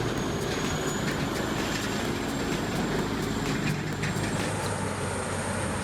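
CBI Magnum 8400 wood grinder running under load, processing wood: a steady, dense low rumble with many short ticks and cracks above it.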